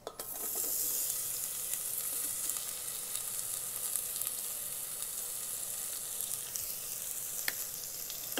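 Sliced onions hitting hot oil in an Instant Pot's stainless steel inner pot on sauté mode: a sizzle that starts suddenly as they go in and holds steady.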